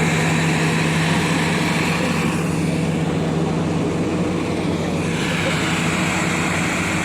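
Diesel engine of a heavy earthmoving machine running steadily with an even, low hum.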